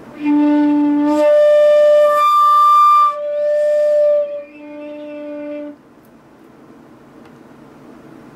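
Haynes Q1 open-hole flute playing one note in three octaves, stepping up twice and back down, for about five and a half seconds before stopping.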